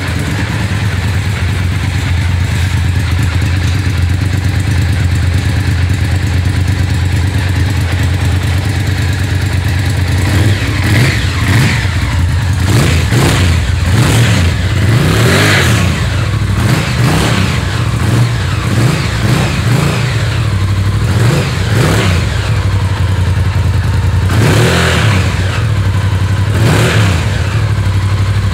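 Honda VTR1000 Firestorm's 996 cc V-twin idling just after an oil and filter change: running well, with no oil leaks. In the second half, several brief louder surges and clattery knocks break into the idle.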